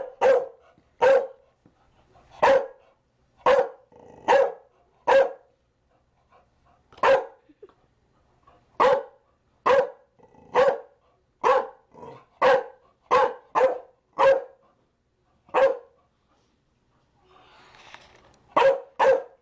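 Chow Chow barking a long series of short single barks, mostly one or two a second, then a pause of a few seconds before two more barks near the end.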